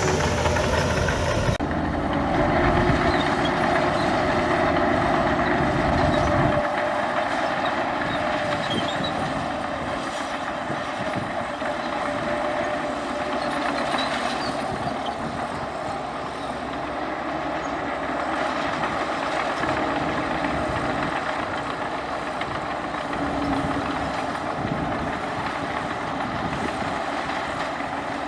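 Heavy diesel earthmoving machinery running steadily, with a constant mid-pitched engine tone. The sound changes abruptly about a second and a half in, and the deep rumble drops away about six and a half seconds in.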